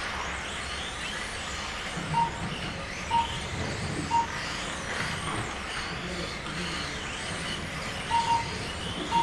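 Short single beeps from a race lap-timing system, three about a second apart a couple of seconds in and a few more near the end, over the faint steady whine of Mini-Z RC cars' small electric motors rising and falling as they lap the track.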